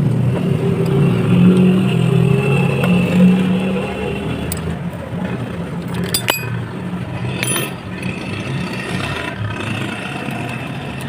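Car engine running, louder for the first few seconds and then settling, with a sharp click about six seconds in.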